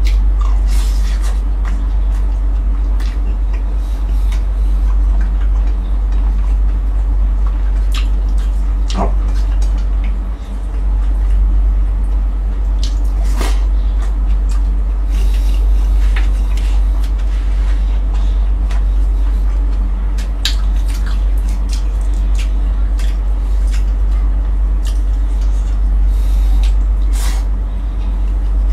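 Close-up eating sounds: chewing and smacking of a mouthful of food, with scattered short clicks and crunches at irregular intervals, over a steady low hum.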